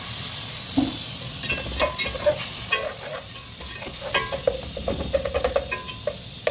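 Metal slotted spatula scraping and clicking against a steel pot while stirring a tomato sauce that sizzles in hot oil. The sizzling hiss is strongest in the first second; the scrapes and clicks come thick from about a second and a half in.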